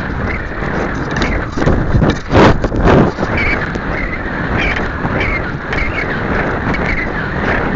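Air rushing over a model rocket's onboard camera microphone in flight, with the airframe knocking and rattling and two louder buffets about two and a half and three seconds in.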